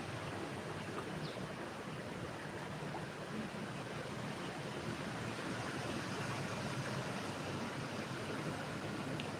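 Steady rushing of river water, with a single sharp click near the end.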